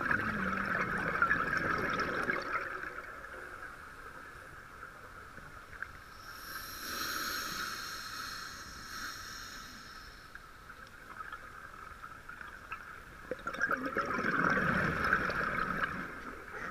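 Scuba diver's regulator breathing underwater: exhaled bubbles gurgle out near the start and again near the end, with a softer inhale hiss between them.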